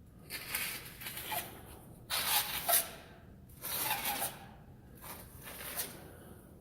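Rustling, scraping noises in four bursts of about a second each.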